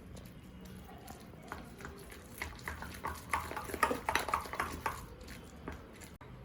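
Spoon stirring thick gram-flour (besan) batter in a bowl: a run of quick, irregular clicks and taps, loudest in the middle, as the batter is beaten smooth to keep lumps from forming.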